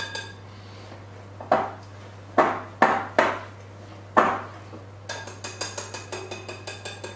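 Mixing utensil knocking against a glass bowl while cake batter is mixed: a handful of separate clinks in the first few seconds, then quick, even tapping from about five seconds in. A steady low hum runs underneath.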